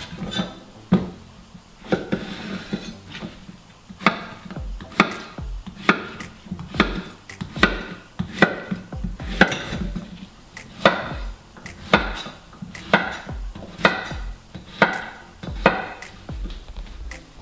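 Kitchen knife chopping a zucchini into large chunks on a wooden cutting board: a sharp knock of the blade on the board about once a second.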